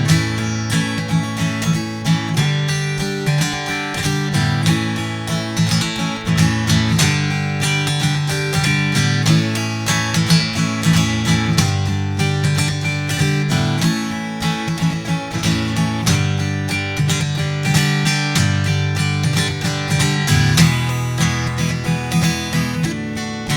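Taylor GS5 cedar-top acoustic guitar strummed in a steady rhythm, moving through a chord progression.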